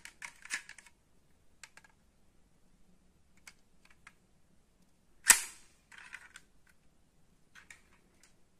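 Small clicks and taps from handling a die-cast metal Volkswagen New Beetle RSi model car and working its opening doors, with one sharp, loud knock about five seconds in.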